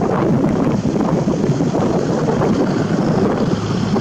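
Strong wind buffeting the microphone: a heavy, gusting rumble that fluctuates without break.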